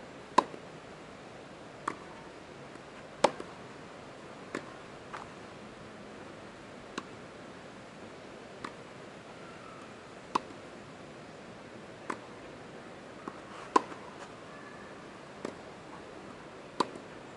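Tennis ball struck back and forth with rackets in a rally: sharp pops about every one and a half to two seconds, some much louder than others, with fainter ball bounces between, over a steady background hiss.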